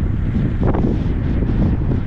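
Wind buffeting a GoPro's microphone on a bicycle coasting fast downhill: a loud, steady rumble with a brief gust.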